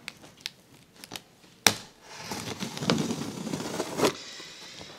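A large kitchen knife cutting along the top seam of a cardboard box. A sharp click comes about one and a half seconds in, then a scratchy slicing sound for about two seconds that ends with a knock.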